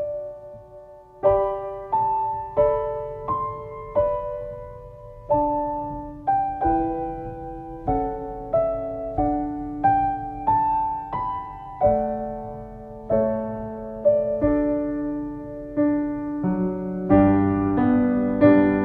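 Background music: a slow solo piano melody of single notes, each struck and left to ring out, with fuller chords and bass near the end.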